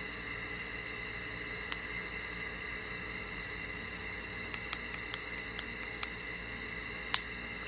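Benchmade 941 Osborne folding knife being worked open and shut on its freshly cleaned pivot and buffed washers: a click a little under two seconds in, a quick run of about eight light clicks around the middle, and one louder click near the end.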